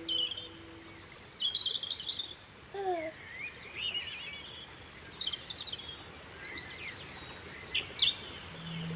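Small birds chirping and twittering in short, quick high calls, with a busier run of chirps near the end.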